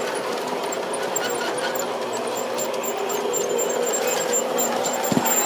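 G scale model train locomotive running along its track: a steady hum and whine from its electric motor and gear drive, with a short low bump about five seconds in.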